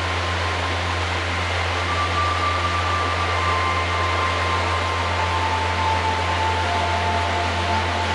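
Steady rushing hiss with a low hum under it, and a few faint held notes that step down in pitch over the last few seconds.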